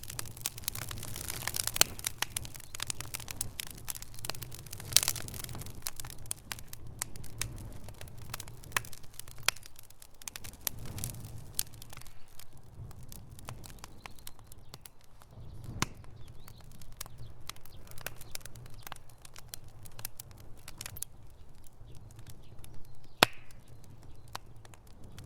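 Campfire crackling: a dense run of small snaps and pops over a low steady rumble, with a few louder sharp pops, the loudest near the end.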